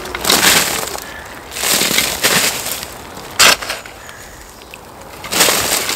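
Steel shovel scraping up soil and tipping it into a pit of hot coals to bury it: four separate scrapes and pours, one of them a short sharp knock about three and a half seconds in.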